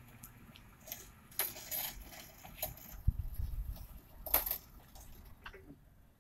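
Steel-framed wooden sliding gate pulled shut by an ALEKO AC1400 chain-drive gate opener: scattered metal clinks and rattles, a low thud about three seconds in, and a loud clank a little past four seconds as the gate reaches its closed position against the post.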